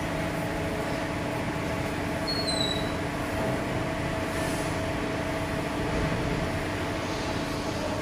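Powder-coating spray gun and booth running while white powder is sprayed: a steady rushing noise with a steady low hum under it.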